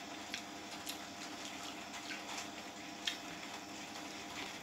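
A man eating rice and chicken curry with his hand: quiet wet chewing and mixing sounds with several sharp clicks, over a steady faint hum.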